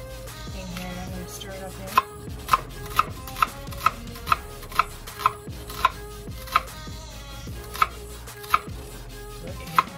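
Steel kitchen knife cutting through a peeled onion and striking a wooden cutting board: about a dozen sharp chops, roughly two a second, beginning about two seconds in, with a longer gap before the last few.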